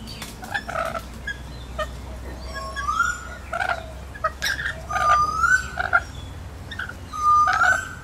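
Rainbow lorikeets calling while they feed: short scattered squawks and chatter, and three rising whistled calls about two and a half seconds apart.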